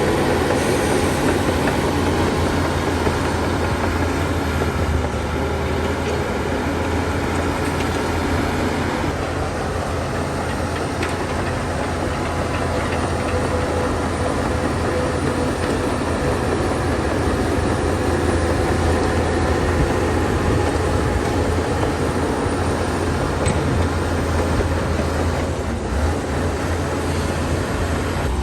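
Shantui DH17 C2 crawler bulldozer running steadily, its heavy diesel engine working with a deep low hum throughout.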